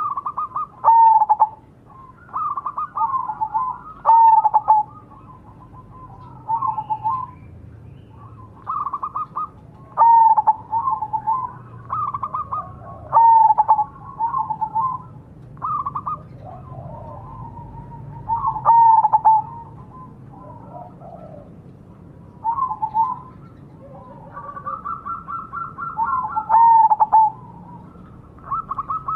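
Zebra dove (perkutut) cooing in repeated short phrases of quick bubbling notes, each ending in a clear coo. A new phrase comes every one to three seconds with short gaps in between.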